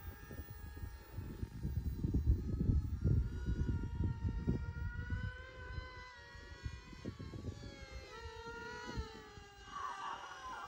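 Small electric RC foam-board plane's motor and propeller whining overhead, a steady high-pitched tone whose pitch wavers in the second half as it manoeuvres. Wind buffets the microphone for the first half or so.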